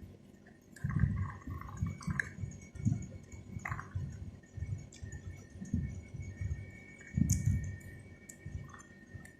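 Close-miked chewing of fruit: low, dull mouth thuds repeating about one to two times a second, with small wet clicks.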